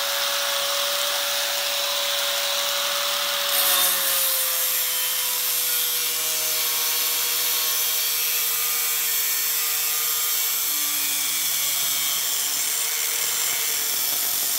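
Angle grinder with a cutoff wheel cutting a sheet-steel panel: a steady whine that drops slightly in pitch as the wheel bites into the metal about four seconds in, with a hiss of grinding over it.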